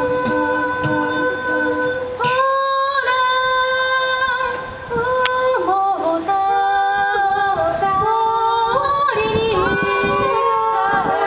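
An a cappella vocal group of mixed voices singing in harmony through microphones and PA speakers, holding long chords that step to new notes. There is a quick, even beat of clicks in the first two seconds.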